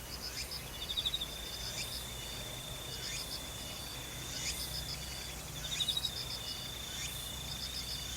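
Insects chirping: repeated short pulsed trills and a steady high-pitched buzz, with a louder rattling trill about a second in and again near six seconds. A faint low hum lies under it.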